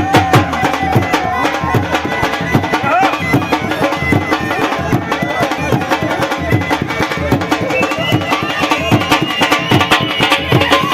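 Music with a fast, steady drum beat and a high, wavering melody line.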